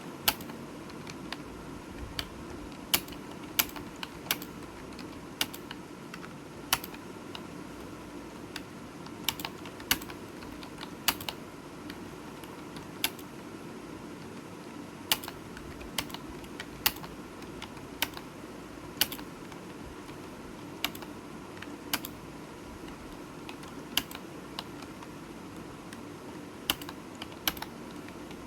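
Typing on a computer keyboard: irregular sharp key clicks, a few a second with occasional quick runs, over a steady low hum.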